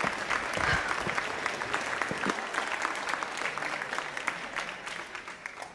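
Applause, a dense patter of many clapping hands that gradually dies away towards the end.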